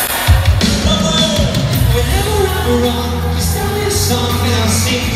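Pop song performed live on stage: men singing over a drum beat and a steady bass line.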